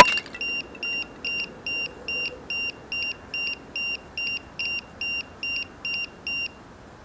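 Electronic buzzer beeping in an even, high-pitched series, about two and a half beeps a second, fifteen beeps in all, then stopping.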